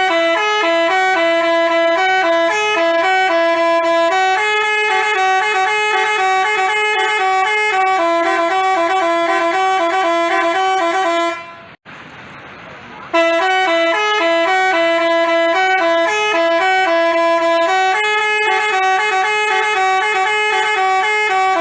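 Telolet basuri multi-tone bus horn playing a quick, bright tune of short horn notes. It stops about eleven seconds in and, after a gap of under two seconds, plays the same tune again.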